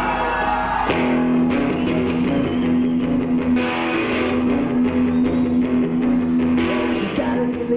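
Rock band playing live, electric guitars to the fore. The full band comes in about a second in, over a steady low note.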